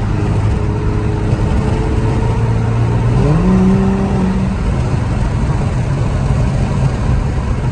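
Infiniti Q50's VR30 twin-turbo V6 heard from inside the cabin, accelerating at highway speed over steady road rumble. Its drone climbs sharply in pitch about three seconds in, holds for about a second, then drops back a little and carries on pulling.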